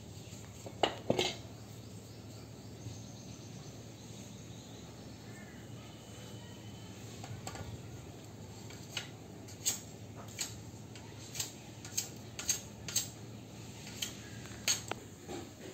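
Sharp light clicks and taps, a couple about a second in and about ten more through the second half, over a low steady hum.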